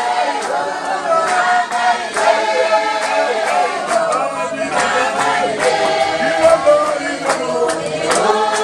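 A church congregation singing together unaccompanied, many voices at once, with hand claps keeping time.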